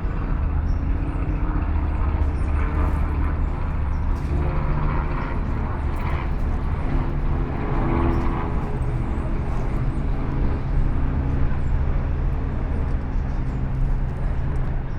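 A large engine running steadily: a constant low hum with several steady low pitches and no change in speed.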